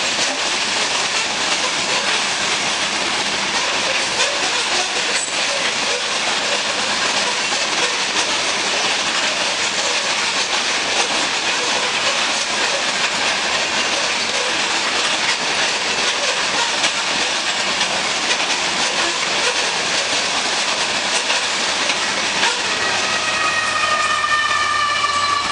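Covered hopper cars of a freight train rolling past: a steady rush of steel wheels on rail. Near the end a whine with several overtones, falling slightly in pitch, comes in as the rear GE ET44C4 distributed-power locomotive passes.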